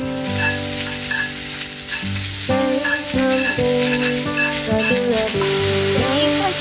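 Mushrooms frying and sizzling in a cast-iron skillet, with a steady hiss that starts shortly after the beginning. Background music plays underneath.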